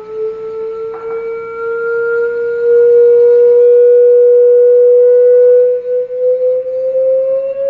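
A single sustained pure tone, like a test-tone generator, gliding slowly upward in pitch and loudest in the middle, with a faint click about a second in.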